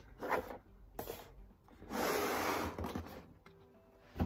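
A tray of makeup products being handled and slid across the bottom of a drawer: a few light knocks, then a scraping swish lasting under a second about two seconds in.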